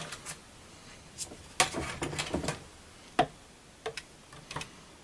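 Short clicks and taps of plastic cutting plates, paper and a small metal die being handled and laid on the bed of a manual die-cutting and embossing machine. A quick cluster comes about a second and a half in, then single clicks every half second or so.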